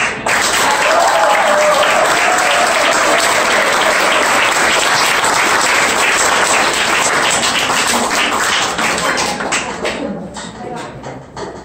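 Audience applauding after a song, the clapping dying away near the end.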